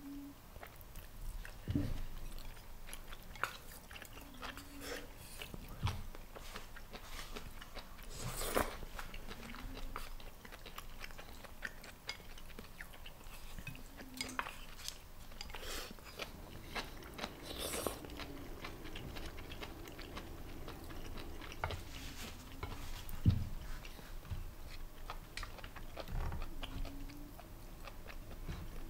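Close-miked chewing and mouth sounds of someone eating ramen noodles and bento food, with scattered sharp clicks and taps of wooden chopsticks against the dishes and a few short low hums.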